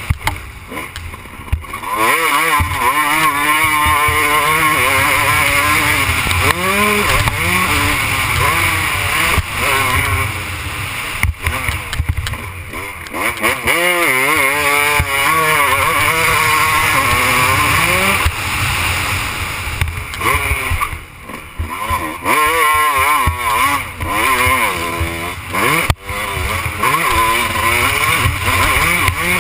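Motocross dirt bike engine revving up and down through the gears, the pitch climbing and falling over and over, with the throttle shut off briefly several times.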